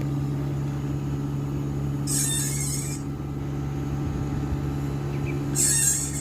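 Panasonic air conditioner running with a steady hum, with two short bursts of hiss, one about two seconds in and one near the end.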